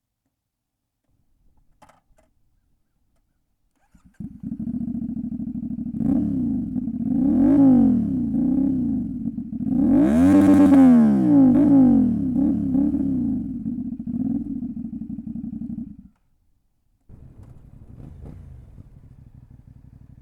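CF Moto 450NK's parallel-twin engine starts about four seconds in and idles, then is blipped in a string of quick revs, the highest about ten seconds in. It cuts off near sixteen seconds, and a quieter steady engine sound follows.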